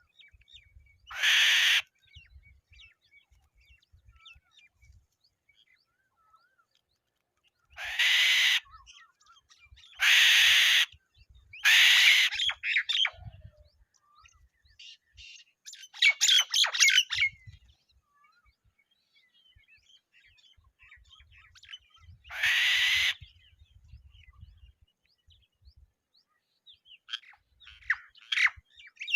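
Black-winged kite calling with harsh screeches, five of them, each under a second, spread irregularly through the stretch. Between them come bursts of quick, thinner chirping notes, one in the middle and one near the end.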